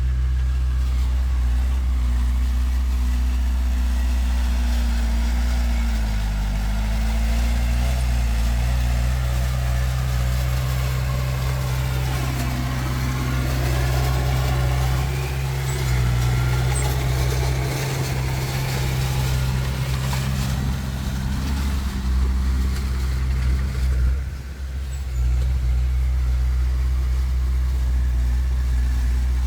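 Diesel engine of heavy earthmoving machinery running steadily, with a rising and falling whine about halfway through and a brief drop in level near the end.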